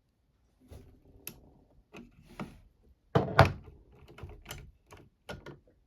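Irregular metallic clicks and knocks of a pin-and-cam tool being worked in an SMP 7-lever safe lock, as pins are set and the tool is turned against the levers, with a louder knock about three seconds in.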